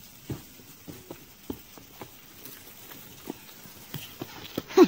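Footsteps and scrambling on rock and gritty ground: a string of short, irregular scuffs and knocks as a hiker climbs over boulders. A brief vocal sound is heard near the end.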